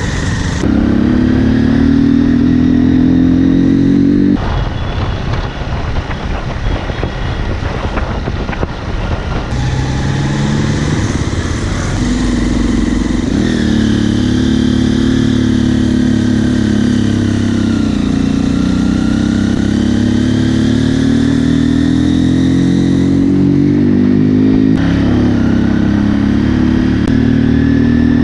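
Motorcycle engine running under way, its pitch rising and falling with the throttle and gear changes. For several seconds early on the engine note drops back under a rough rushing noise.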